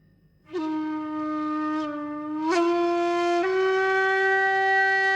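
A wind instrument holding one long, sustained note that steps up slightly in pitch twice, the kind of horn-like tone used as an intro sound.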